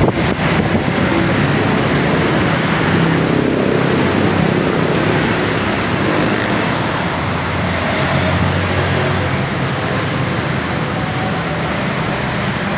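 Strong wind blowing: a steady rushing noise, with a low rumble from gusts buffeting the microphone.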